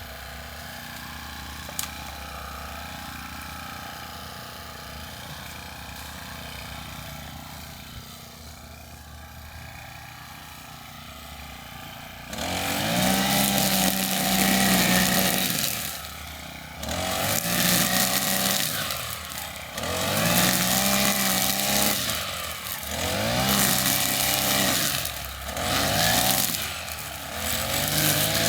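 Small petrol engine of a garden machine, running low and quiet at first. About twelve seconds in it revs up loud, then rises and falls in repeated surges every two to three seconds, the pitch sagging as it takes load.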